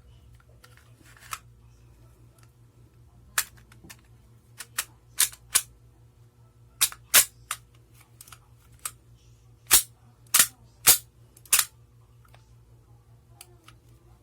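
Airsoft gas-blowback Glock 18 pistol firing single shots: about a dozen sharp cracks at uneven intervals, the loudest in the second half.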